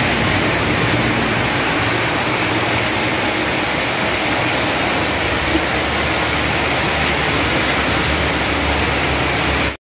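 Torrential rain pouring down on a street and roofs: a steady, loud rush of water with no letup. It cuts off abruptly just before the end.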